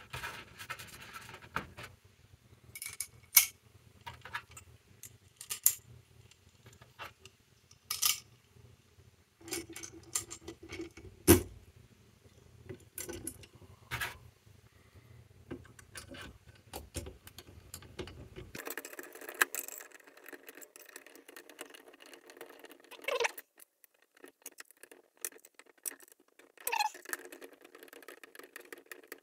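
Scattered small clicks and taps of hand work: metal screws and an Allen key knocking against a plastic fan and a 3D-printed plastic housing as the fan is screwed on.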